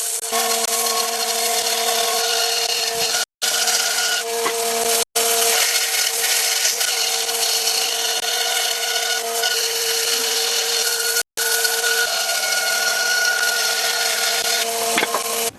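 Electric power tool working wood: a steady motor whine over a dense grinding, rasping noise. It breaks off in three brief, abrupt gaps of silence.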